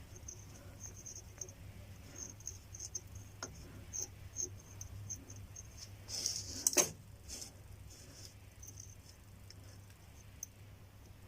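Faint scattered ticks and light scraping of hand work on a car's steering tie rod end, with a brief louder rustle ending in a sharp metallic click about two-thirds of the way through.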